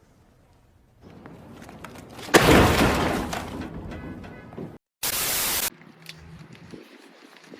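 Car tyre rolling onto and crushing an object: a sudden loud crunch of breaking a little over two seconds in, tailing off over about a second and a half, then a short burst of hiss around five seconds in.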